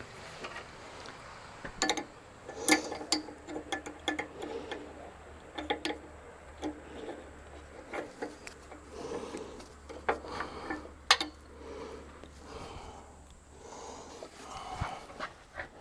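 Irregular metallic clinks and knocks, some ringing briefly, from hand tools and steel parts being handled during truck air-suspension work.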